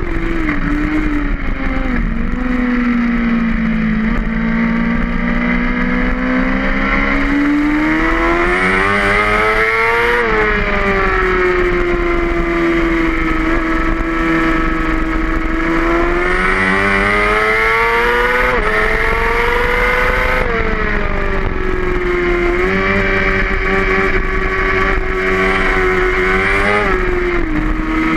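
Race motorcycle engine at track speed, heard from a camera mounted on the bike, with wind rushing over the microphone. Its pitch falls over the first few seconds, then climbs and drops several times as the revs rise and fall.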